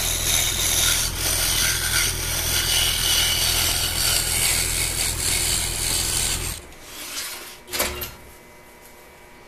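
Scroll saw running with a steady motor hum, its reverse-tooth blade cutting fretwork in thin wood. The saw stops suddenly about two-thirds of the way through, and a single short click follows about a second later.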